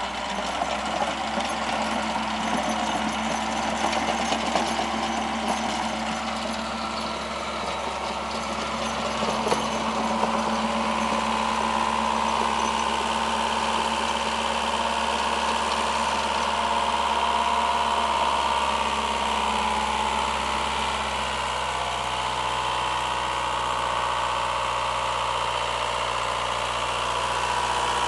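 Ransomes CT465 compact tractor engine running steadily while it drives a PTO rotary tiller that churns through turf and soil.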